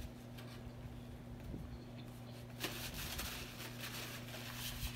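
Paper sandwich wrapper crinkling and rustling in the hands, starting about two and a half seconds in, over a faint steady low hum.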